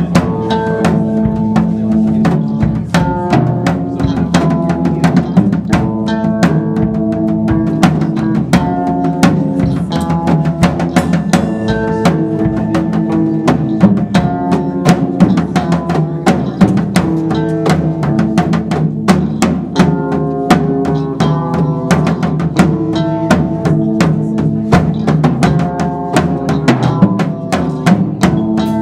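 A band playing instrumental music: a drum kit beats a fast, steady rhythm under sustained pitched instrument notes.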